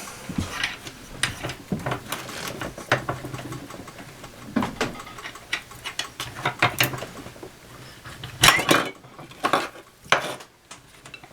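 Irregular metallic clicks, clinks and short scrapes as a saw blade and a small vise are handled and repositioned, with a cluster of louder knocks and scrapes about eight to ten seconds in.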